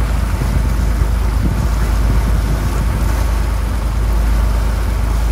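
Sightseeing boat's engine running with a steady low drone, mixed with wind noise on the microphone.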